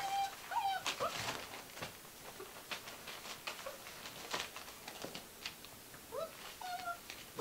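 Gordon Setter puppies giving short, high whimpers at the start and again near the end, over light rustling and pattering as they scramble over newspaper.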